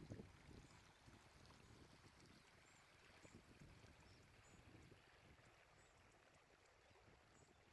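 Near silence: faint room tone with soft, low handling noises.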